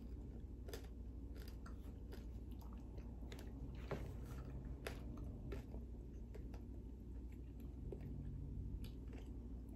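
A person chewing crispy pork lechon with the mouth close to the microphone: faint, irregular crunches of the crackling skin.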